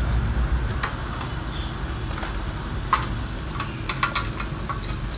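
Handling noise from metal audio connectors and cables: scattered light clicks and ticks, over a steady low rumble.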